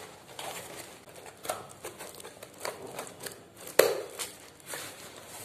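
A cardboard parcel and its plastic packing being handled and cut open with scissors: irregular crinkling and rustling with sharp clicks, the loudest just under four seconds in.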